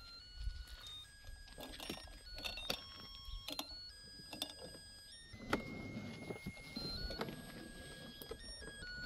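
A battery-powered toy car's sound chip playing a beeping electronic tune, single tones stepping from pitch to pitch, with scattered clicks and knocks of handling.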